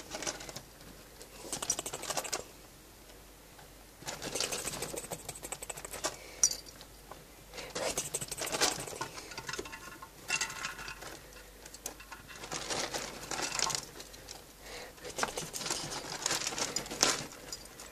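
Rustling and scratching in cage bedding from pet rats scurrying about, in crackly bursts of about a second with short pauses between.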